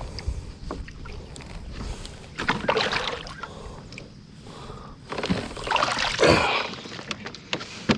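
Water splashing beside a kayak as a hooked blue catfish is brought alongside and landed by hand, with two louder bursts of splashing.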